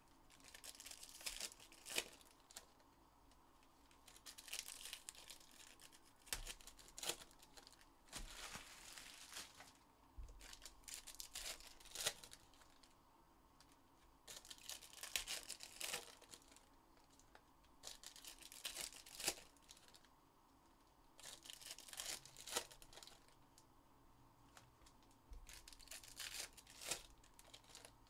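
Plastic wrapping on trading card boxes and packs being torn open and crumpled by hand: soft, irregular bursts of crinkling and tearing, with sharp clicks in between.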